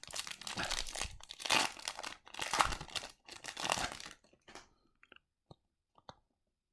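Foil wrapper of a hockey trading-card pack being torn open and crinkled for about four seconds, followed by a few light ticks.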